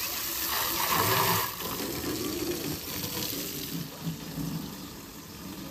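Water from a garden hose spraying and splashing against a car's wheel and body panels, a steady hiss, loudest about a second in.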